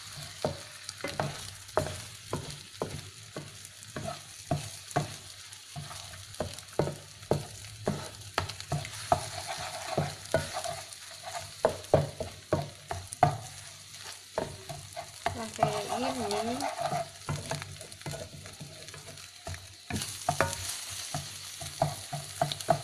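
Eggs sizzling in hot oil in a non-stick wok while a wooden spatula breaks them up, knocking and scraping against the pan about twice a second. The sizzle grows louder near the end.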